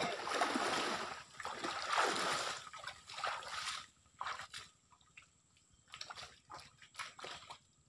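Water splashing and sloshing, loudest in the first few seconds in two or three swells, then dropping to faint scattered splashes and drips.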